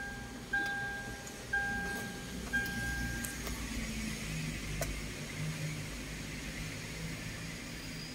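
Car's dashboard warning chime beeping with the ignition key switched on: a two-tone beep about once a second, three more times, stopping a little past three seconds in. A low steady hum follows.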